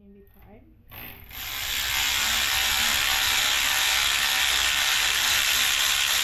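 A power ratchet runs steadily for about five seconds, starting a little over a second in, loosening a fastener on a GM 4L60 automatic transmission case.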